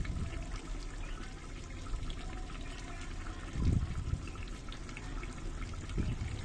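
Chicken and potato curry simmering and bubbling in an aluminium pot over a wood fire, a steady liquid hiss, with two louder low thumps, one past the middle and one near the end.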